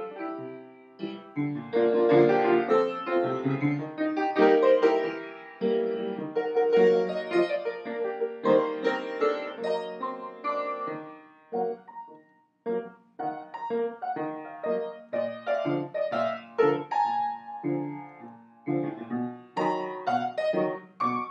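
Piano music: a quick run of notes, with a brief pause about twelve seconds in.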